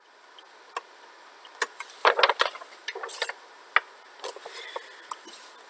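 Scattered light clicks and taps over a steady hiss, with a brief cluster of clattering about two seconds in.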